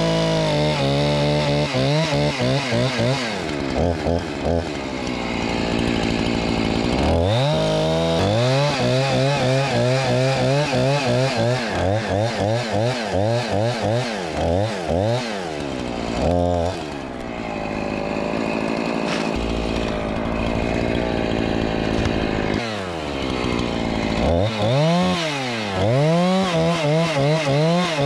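Chainsaw cutting through a tree trunk at high revs. Its engine pitch dips and recovers again and again as the chain bites into the wood, with steadier spells about four seconds in and again just past the middle.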